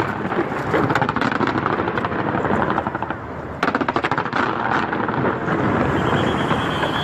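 A large fireworks display going off in rapid succession: a dense, fast crackling rattle of many small bursts, which jumps suddenly louder about three and a half seconds in.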